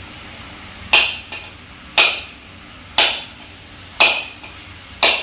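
A kitchen knife striking a whole coconut's hard shell to crack it open: five sharp knocks about one a second, some followed by a smaller knock. The knife stands in for a cleaver.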